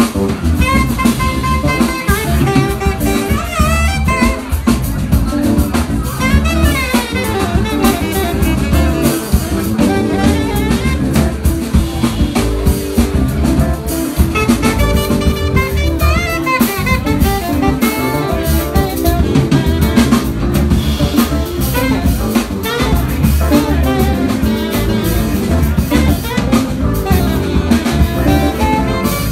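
Live jazz quintet playing: saxophone leading with a melodic line over drum kit, electric guitar, bass and keys.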